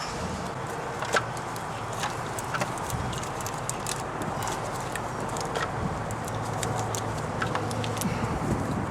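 Scattered light metal clinks and knocks as the alternator is worked loose from its bracket in a Toyota Celica GT-S engine bay, over steady background noise. The sharpest knock comes about a second in.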